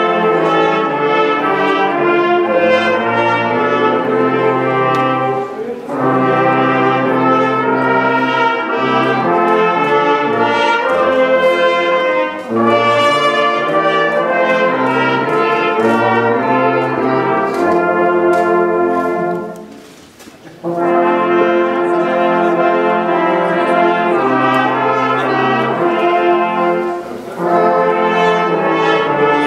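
A brass band of trombones and trumpets plays a tune in sustained phrases. The music breaks off briefly about twenty seconds in, then resumes.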